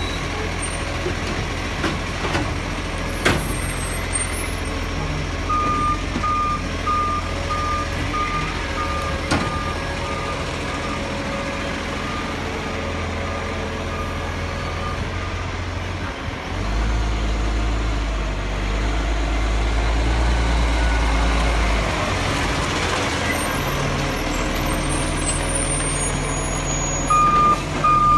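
Iveco side-loading garbage truck's diesel engine running low while its reversing alarm beeps steadily, about two beeps a second, for roughly ten seconds. Midway the beeping stops and the engine's rumble grows louder for several seconds, then the reversing beeps start again near the end.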